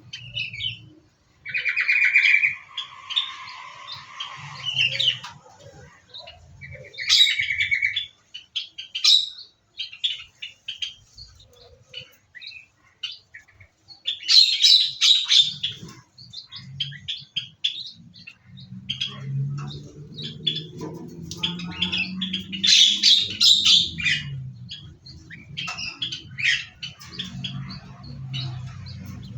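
Several small aviary birds chirping and calling, with many quick high chirps and a couple of short buzzy trills. A low hum runs underneath from about halfway.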